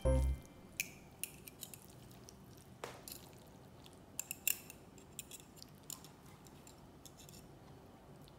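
Metal fork tines clinking and scraping lightly against a ceramic plate while twirling spaghetti, a dozen or so faint, irregular clicks.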